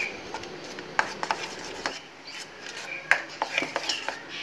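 Metal spoon stirring thick oats dosa batter in a stainless steel bowl: irregular clicks and scrapes as the spoon knocks and drags against the bowl.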